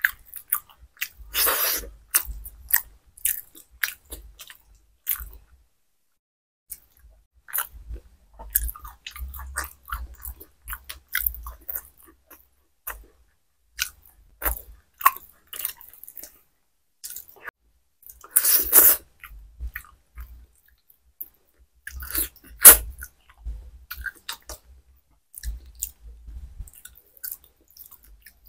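Close-miked chewing and mouth sounds of a person eating soft khichuri and fried vegetables by hand: irregular clicks and smacks, with a few louder bursts and one short pause.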